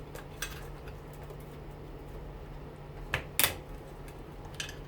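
Small clicks and metallic clinks of a screwdriver prying at a clipped-on part of a front-load washing machine motor, the sharpest clink about three and a half seconds in, over a steady low hum.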